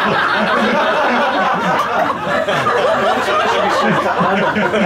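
Audience laughing, many voices overlapping.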